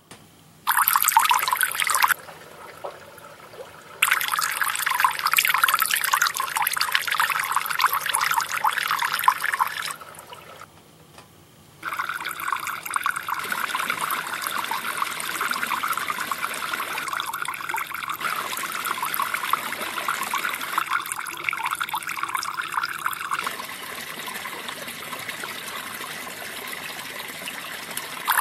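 Moving water trickling and splashing with a high, hissing sound, heard in separate stretches that start and stop abruptly: a short burst about a second in, a longer stretch from about four to ten seconds, then a steady run from about twelve seconds that grows softer near the end.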